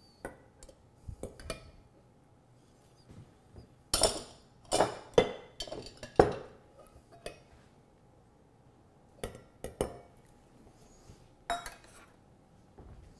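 Metal measuring cup, glass olive-oil bottle and glass mason jar clinking and knocking against each other and the countertop as they are handled and set down. Sharp knocks come in a cluster about four to six seconds in, with a few more later.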